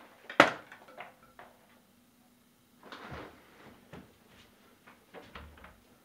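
Knocks and bumps of a person moving about and handling things in a small room: one sharp, loud knock about half a second in, then scattered lighter knocks and a brief rustle.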